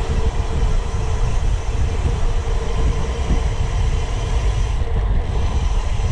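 Wind buffeting the microphone and tyre rumble from a road bike rolling along at speed, a steady low rush with a faint thin hum above it.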